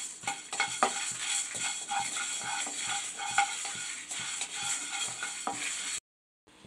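Wooden spatula stirring and scraping dry lentils, seeds and dried red chillies around a nonstick kadai as they dry-roast without oil: a steady run of quick, uneven scrapes and clicks that cuts off suddenly near the end.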